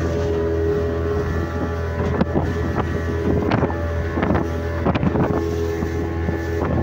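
A small motorboat's engine running steadily under way, with wind on the microphone. From about two seconds in, a series of irregular sharp knocks and splashes, the hull slapping through the chop.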